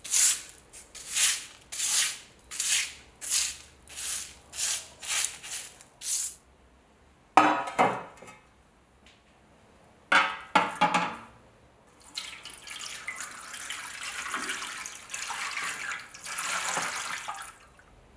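A paintbrush sweeping rust dust off cardboard in about ten quick even strokes. Then the rusty steel scabbard clanks a few times against a stainless steel tray, and liquid is poured into the tray for about five seconds.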